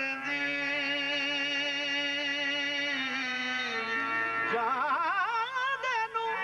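Qawwali music: a male voice holds one long note over a steady harmonium drone, then about four seconds in breaks into an ornamented run with a wide, wavering vibrato.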